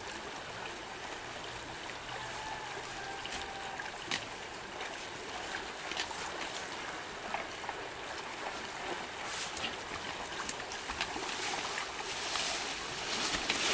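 Water rushing and splashing steadily, with scattered short splashes and knocks that come more often and a little louder from about nine seconds on.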